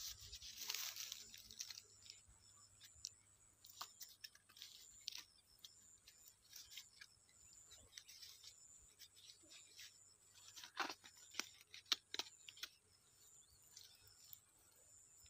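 Crinkling and rustling of a wrapped bait bundle being handled, in scattered small crackles, loudest in the first second or two and with a few sharper clicks later.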